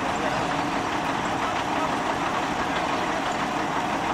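Heavy truck diesel engine idling steadily.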